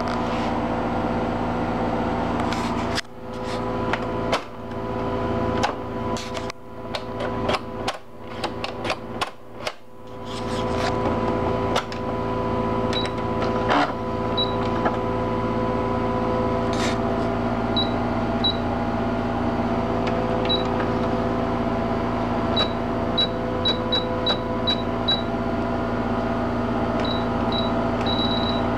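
Baby Lock computerized sewing machine: a steady electric hum that cuts out and ramps back up several times between about 3 and 10 seconds in, then short high beeps from its keypad, singly and in quick runs, as stitch-selection buttons are pressed.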